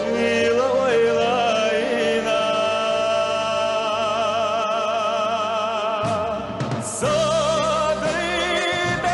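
A man singing a slow song into a microphone over instrumental accompaniment, holding long notes with vibrato. The held line breaks off briefly about two-thirds of the way in before a new phrase begins.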